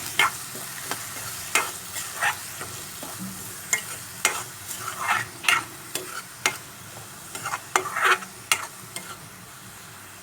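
Onion paste, curry leaves and green chillies frying in oil in a kadai, stirred with a spoon: a steady sizzle with irregular scrapes and knocks of the spoon against the pan, which fall quiet near the end.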